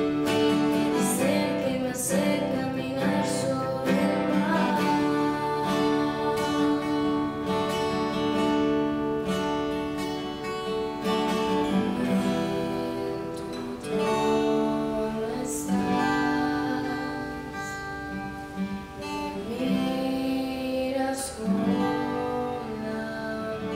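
Strummed acoustic guitar accompanying a woman singing a worship song in Spanish.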